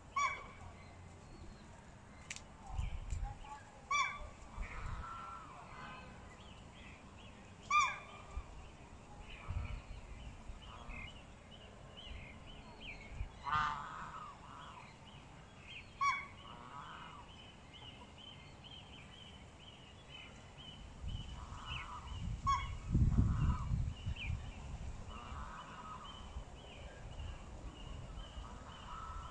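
Chickens clucking and squawking in short calls every few seconds, over a steady scatter of faint high chirps. A low rumble comes in about two-thirds of the way through.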